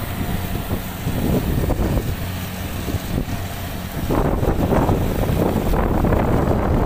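Combine harvester engine running steadily in a muddy rice paddy, a low hum under rough rumbling noise that gets louder about four seconds in.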